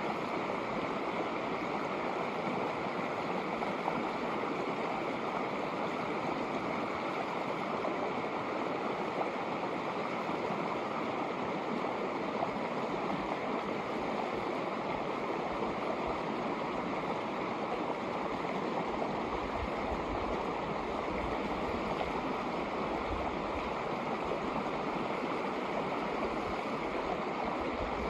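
Shallow snowmelt creek running over stones: a steady, unbroken rushing babble of water.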